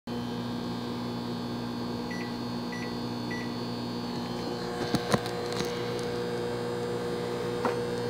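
Microwave oven running with a steady electrical hum. Three short keypad beeps come a little over two seconds in, and a few sharp clicks about five seconds in.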